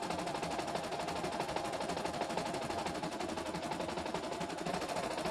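CNY E960 computerized embroidery machine stitching a design, a fast, even needle chatter.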